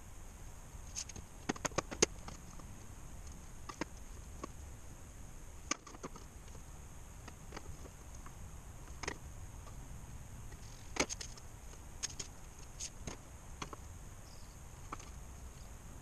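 Scattered light clicks and taps, some in quick little clusters, as metal gauges and a marker are handled and set down on a plywood panel over a steel workbench, with a steady low hum underneath.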